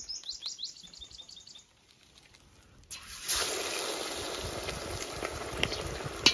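A bird's quick string of short falling chirps, then, about three seconds in, batter-coated chicken sizzling in hot oil in a wok: a steady hiss with sharp pops, one loud pop near the end.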